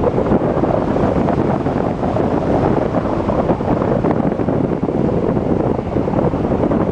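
Wind from the airflow of paragliding flight buffeting the camera's microphone: a steady, loud rumbling rush with no let-up.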